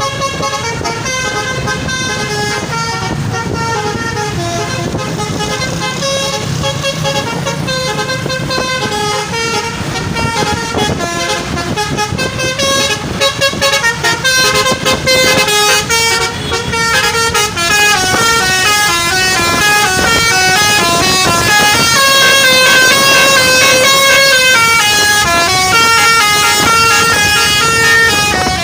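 Basuri telolet musical horn on a bus, its multi-trumpet air horn playing a long, fast melody. Several notes sound together and step up and down in pitch, growing louder about two-thirds of the way through.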